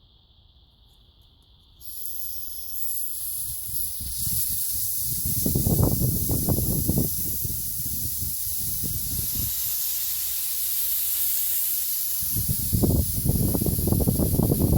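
Gas hissing steadily from a propane burner, starting suddenly about two seconds in, with low rumbling that comes and goes twice.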